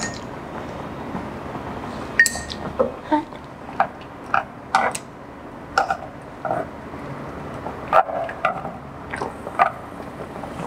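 Wooden chopsticks clicking and knocking against the hotpot and its broth well as beef is dipped: a scattered run of sharp clicks starting about two seconds in, over a low steady hiss.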